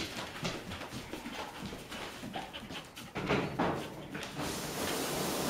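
Poodle panting excitedly and moving about on a tile floor, with short sharp clicks and scuffles. A steady hiss sets in near the end.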